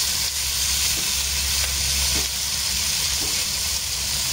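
Fish pieces sizzling steadily as they pan-fry in oil in a nonstick wok.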